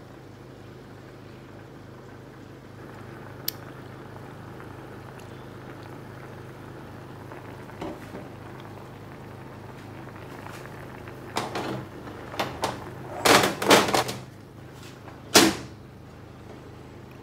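Fish simmering in sauce in a stainless steel pan, bubbling faintly over a steady low hum. In the last third comes a run of loud knocks and clatters, the loudest sounds here.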